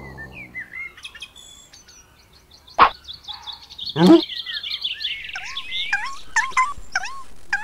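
Birds chirping and twittering, with the chirps busier and louder in the second half. A sharp click comes about three seconds in, and a short, loud swooping sound about a second later.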